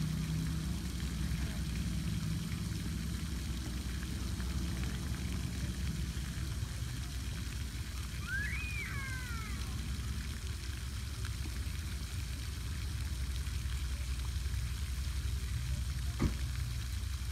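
Steady outdoor background noise at a pond bank, mostly a low rumble, with a low hum that fades out about six seconds in. A short bird chirp comes about halfway through, and a single faint click near the end.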